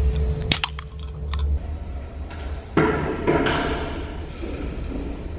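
Ring-pull of an aluminium Red Bull can cracked open: a quick cluster of sharp clicks with a short hiss about half a second in. Music with held chords comes in a little before the three-second mark.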